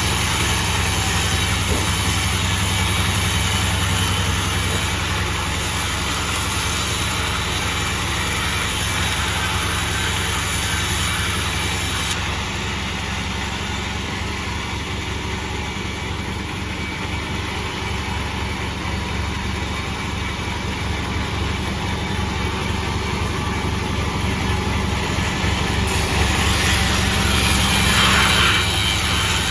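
Sawmill machine running steadily while sawing sonokembang wood. Its high hiss drops away about twelve seconds in and comes back near the end.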